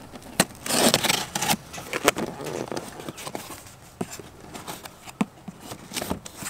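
Knife slitting the packing tape along the top of a cardboard box. There is a ripping, scraping stretch about a second in, then scattered clicks and scrapes as the blade works along the seam and the cardboard flaps are pulled open.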